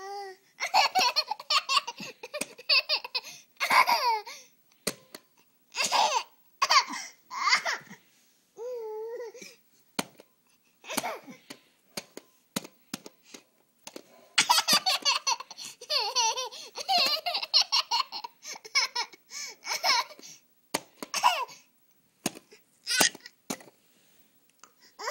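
A toddler laughing in repeated bursts of giggles, with a held, wavering vocal sound about nine seconds in. A few short clicks fall between the laughs.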